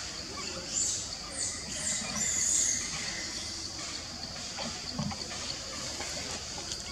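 Forest ambience: a steady high-pitched hiss with several short, very high squeaks in the first three seconds, the longest about two and a half seconds in, and a soft low thump about five seconds in.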